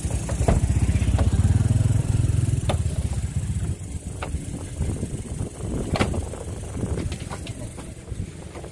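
A vehicle engine running close by, a steady low rumble that is strongest in the first few seconds, with scattered sharp knocks and bumps: a car body and doors being handled as a person is pushed into the back seat.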